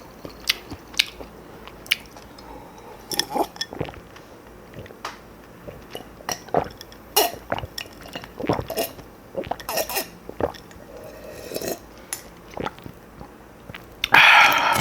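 Close-miked eating: crunchy bites and chewing of kimchi and black bean noodles, with scattered sharp clicks and clinks of utensils on the bowl, and one louder noisy burst near the end.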